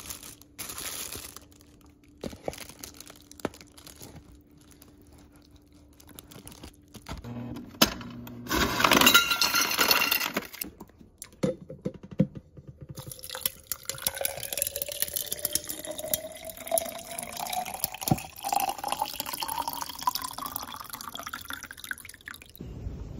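Water poured from a jug into a stainless-steel pot, the pitch of the filling rising steadily for several seconds as the pot fills. Earlier there is a louder rush of running water, and a low steady hum in the first few seconds.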